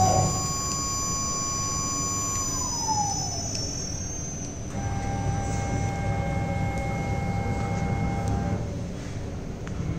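CNC router's motors whining in thin steady electric tones over a low hum. About two and a half seconds in, one whine slides down in pitch; a new steady whine starts about five seconds in and stops near nine seconds.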